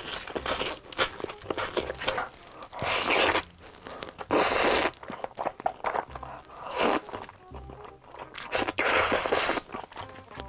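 Close-miked eating sounds: several long, loud slurps of spaghetti in tomato sauce, with wet chewing and crunching of breaded fried cheese sticks in between. Soft background music with a repeating bass line runs underneath.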